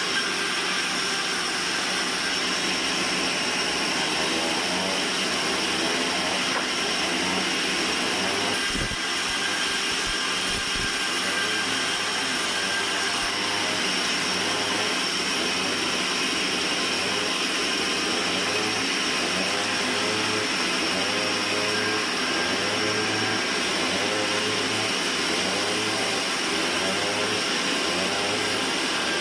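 Band sawmill running steadily: a constant, loud machine noise with steady high-pitched tones that holds without a break.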